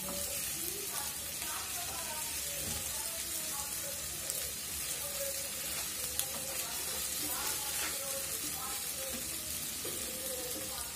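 Sliced onions with ginger-garlic paste and salt sizzling steadily in hot oil in a non-stick frying pan, with a spatula stirring them through.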